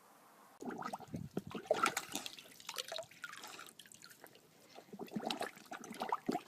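Water sloshing and dripping in short, irregular bursts.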